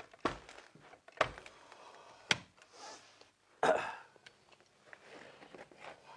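Carpet tools being handled while the carpet edge is worked in along the wall. Three sharp knocks come about a second apart, then a louder scraping rasp after about three and a half seconds, with soft rustling of carpet in between.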